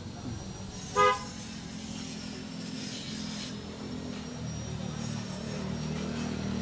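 A vehicle horn gives one short beep about a second in, over the steady low running of a motor vehicle engine.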